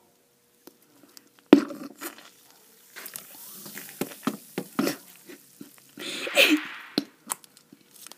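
Close-up mouth sounds of eating a frozen tangerine lime sparkling water treat: sharp crunching bites, the loudest about a second and a half in, with wet sucking and slurping between them and a louder slurp about six seconds in.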